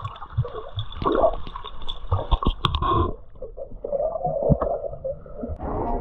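Water gurgling and sloshing as heard by a camera held underwater, muffled, with scattered knocks and bumps. About halfway through the sound turns duller still.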